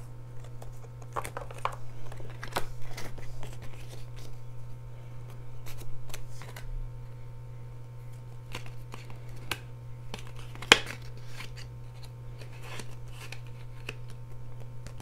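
Paper rustling and crinkling of a cash envelope and a folded bill being handled and worked together, with scattered light taps against a plastic box and one sharper click about ten and a half seconds in, over a steady low hum.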